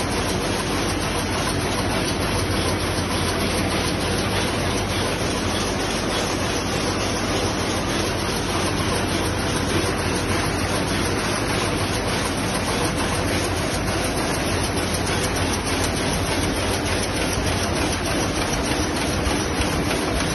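Power loom with an electronic jacquard running at speed: a steady, dense mechanical clatter of rapid repeated beats that does not let up.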